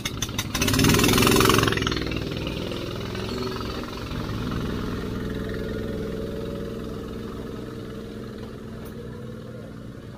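270 cc go-kart engine running at idle, with a louder surge of engine noise lasting about a second near the start before it settles into a steady idle.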